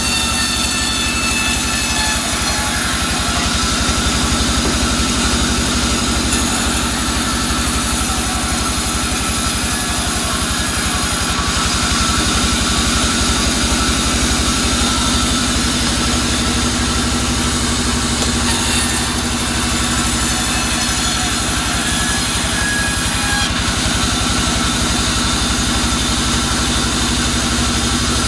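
Band sawmill running while its blade rips a soft albasia (sengon) log lengthwise into boards: a steady machine drone with a fine rapid pulse underneath. The high hiss steps up and down several times as the cut goes on.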